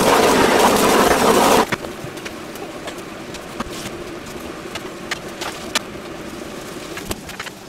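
Sauce poured from a bottle into a hot frying pan of beef and vegetables sizzles loudly, cutting off sharply about a second and a half in. After that the pan keeps sizzling more quietly, with scattered light clicks as noodles are tossed with metal tongs.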